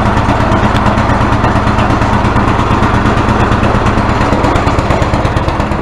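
Toro snowblower's single-cylinder four-stroke engine running steadily just after a cold start. It caught only once gas was poured straight into the cylinder, because it was not getting fuel.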